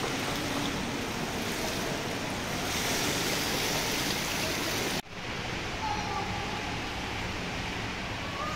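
Water splashing and lapping in an indoor pool as a child kicks and paddles, over a steady wash of water noise in the echoing pool hall. The sound breaks off for an instant about five seconds in, and the steady water noise carries on.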